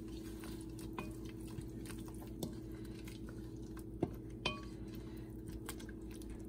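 Wooden spatula stirring a watery onion and mint paste in a stainless steel pot, with a few sharp clicks as it knocks against the pot, over a steady low hum.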